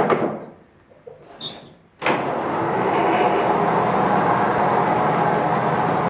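Electric drive motor of a lawn tractor converted from gas to electric, starting about two seconds in and running steadily as the tractor drives off, after a knock at the start.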